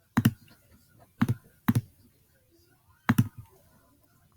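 Computer keyboard keystrokes: a handful of single, separate key presses at irregular intervals, two of them in quick succession about three quarters of the way through.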